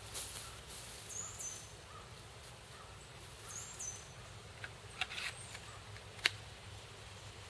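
Outdoor ambience with a bird giving a short high chirp about every two and a half seconds, and a few sharp clicks about five and six seconds in.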